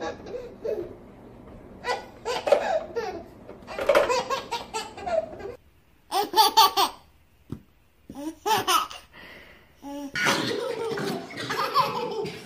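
Babies laughing in repeated bursts of giggles and belly laughs, with short pauses between them.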